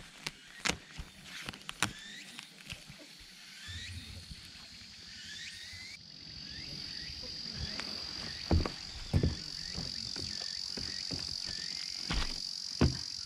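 Insects calling: short rising chirps repeat, then about halfway in a steady high trill sets in. A few sharp knocks come in the second half.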